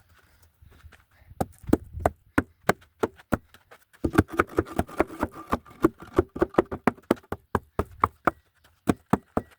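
Hammer blows on a wooden 2x10 form board: a few spaced knocks, then from about four seconds in a fast run of about five knocks a second.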